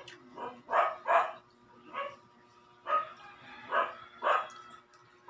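A dog barking repeatedly, about seven short barks at uneven intervals.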